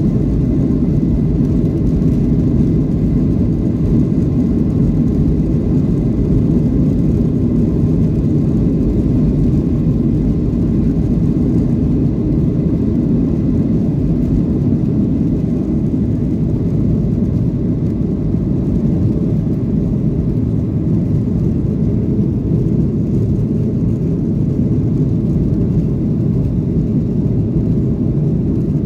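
Cabin sound of a Boeing 737-800 during its takeoff roll and liftoff: the CFM56-7B engines at takeoff thrust give a loud, steady, deep rumble, with a faint steady whine above it.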